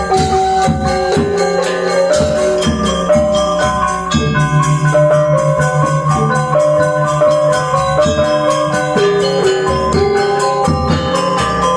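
Balinese gamelan gong ensemble playing: interlocking bronze metallophones ringing over a low sustained gong tone that pulses steadily from about four seconds in.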